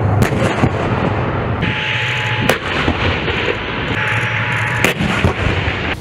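Main battle tank driving with its engine running in a steady low rumble, over which three sharp gunfire bangs come about two seconds apart.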